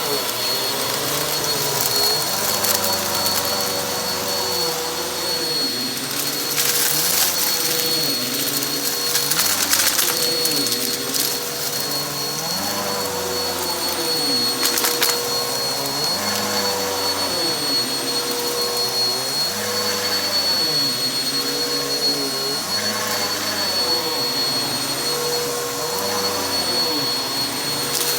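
Vacuum cleaner running on carpet with a steady motor whine, its tone shifting in an even back-and-forth rhythm about every two seconds as it is pushed and pulled. A few brief crackling rattles, around a third of the way in and again about halfway, as crunchy debris is sucked up.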